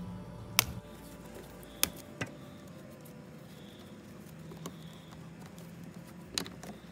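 A handful of sharp, irregularly spaced clicks and taps from hands working twisted wire connections and black electrical tape in an electrical junction box.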